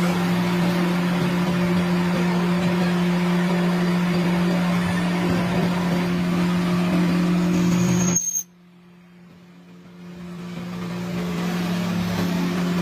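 A workshop machine running at a steady speed, giving a constant low hum with hiss over it. About eight seconds in the sound drops away suddenly, then fades back up at the same pitch.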